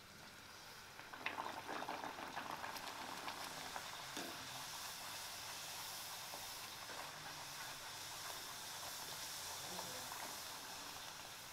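Hot oil sizzling and bubbling as a spinach (palak) puri deep-fries. The crackle jumps up about a second in as the dough hits the oil, then settles into a steady sizzle.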